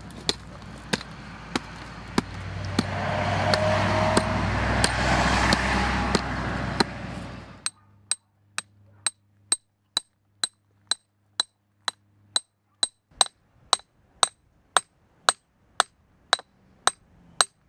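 Steel rock hammer chipping at fossil reef limestone in steady strikes, about two a second, each a sharp ringing clink of metal on rock. A loud rushing noise runs under the strikes in the first half and cuts off suddenly about halfway through.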